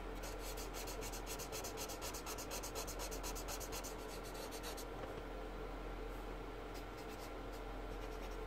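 Alcohol-based Promarker nib scrubbing on paper in rapid, even back-and-forth colouring strokes. They stop a little past halfway, and a few lighter strokes follow near the end.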